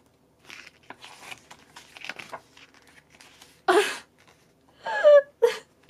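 Glossy pages of a photobook being turned and handled: paper rustling and sliding, with a louder rustle about four seconds in. Near the end, a short excited vocal exclamation.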